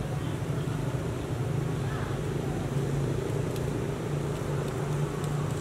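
Steady low rumble of outdoor background noise, with a few faint high ticks.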